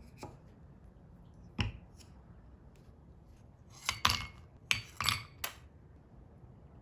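Light clinks and knocks of kitchen items being handled: one knock about a second and a half in, then a quick run of four or five clinks near the end.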